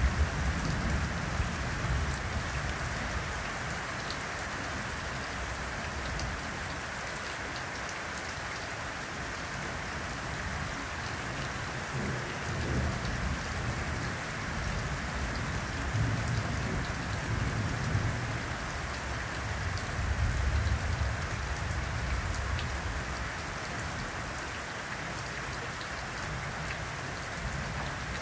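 Steady heavy rain pouring down, with low rolls of thunder rumbling in and out: strongest at the very start and again about two-thirds of the way through.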